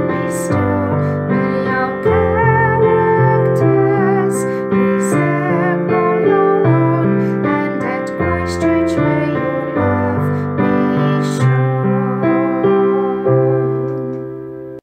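A woman singing the school song, a slow hymn-like tune, to piano accompaniment. The last chord dies away and the music stops near the end.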